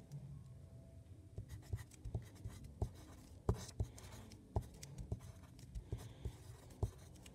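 Graphite pencil writing numbers on a paper sheet: irregular short scratches and light taps of the point as each digit is written.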